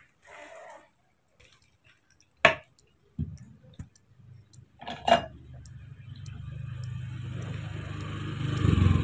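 Sharp metallic clinks and knocks from a hand-lever citrus juicer being worked. About halfway through, a low steady hum starts and grows louder toward the end.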